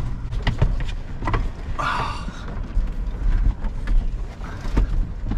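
Scattered knocks and bumps of a person climbing through a box truck's pass-through doorway into the cab and brushing against the camera, with a brief rustle about two seconds in, over a steady low rumble.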